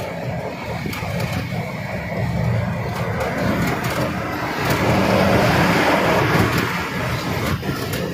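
Engine and road noise heard inside the cab of a moving BharatBenz 1617R truck. A steady low rumble swells louder about halfway through as a truck passes close by in the opposite lane, then eases.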